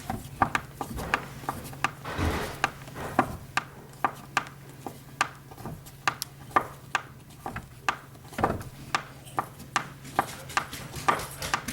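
Hand tools clicking and tapping irregularly against metal door hardware, about one to two sharp clicks a second, with two brief scraping rubs, as stubborn screws are worked out of the door's strike area.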